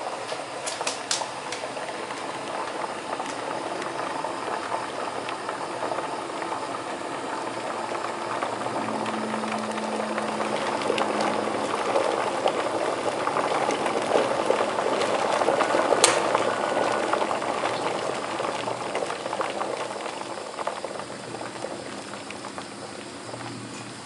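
Electric kettle heating water to the boil: a steady rushing hiss with scattered small ticks that builds to its loudest a little past halfway, then eases off. There is one sharp click near the peak.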